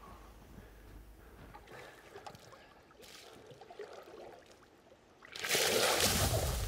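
Faint water sloshing in a metal washtub, then about five seconds in a loud rushing splash as a man plunges under the water, with a deep rumble setting in beneath it.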